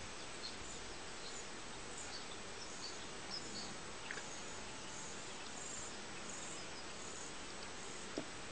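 Quiet outdoor ambience: a steady hiss with faint, short high chirps scattered through it, and one soft click about eight seconds in.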